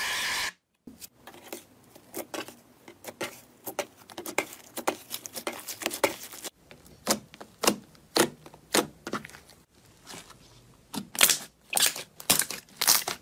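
Aerosol shaving foam hissing briefly at the start. Then slime mixed with shaving foam is stretched and pressed by hand, giving a run of sticky clicks and small air-bubble pops that grow louder and more spaced out in the second half.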